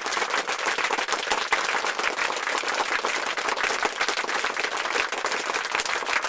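A crowd applauding: dense, even clapping at a steady level.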